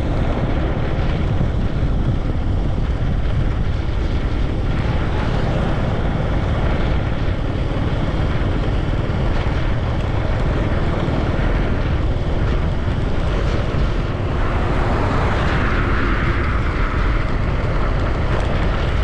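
Steady rumble of a moving vehicle, with wind buffeting the microphone.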